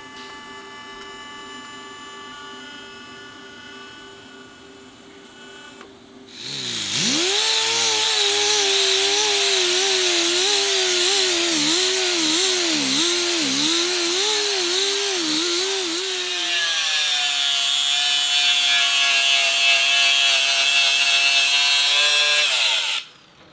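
Electric power tool working metal in a fabrication shop. It starts about six seconds in with a loud rush, its motor pitch dipping again and again as it is pressed into the work. It then runs steadier at a lower pitch and stops suddenly near the end, after a quieter steady hum at the start.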